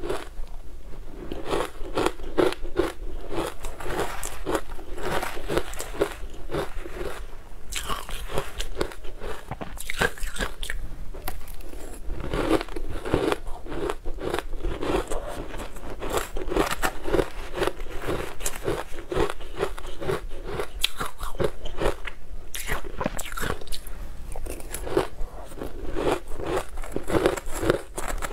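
Mouthfuls of ice under a crumbly green topping being bitten and chewed, a continuous run of crackly crunches, several a second.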